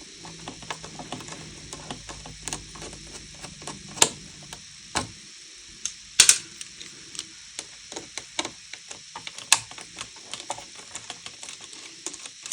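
Irregular small metallic clicks and taps of a screwdriver and tiny screws while two screws holding the Thunderbolt cable are taken out of an Apple Cinema Display, with a few sharper clicks among them and a low hum under the first few seconds.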